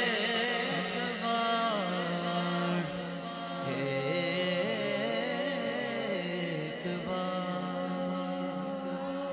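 Unaccompanied devotional naat singing. A lead voice slides through long held notes over a steady hummed drone from backing vocalists.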